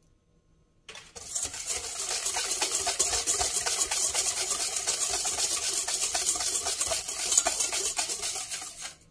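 Wire hand whisk beating a liquid cake batter of eggs, sugar and melted butter in a stainless steel bowl: a fast, even rattle of strokes that starts about a second in and stops just before the end.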